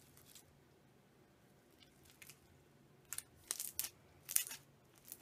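Semi-floam slime packed with foam beads and marshmallow beads being squeezed by hand, giving a few short, crunchy crackles about three to four and a half seconds in after a near-quiet start.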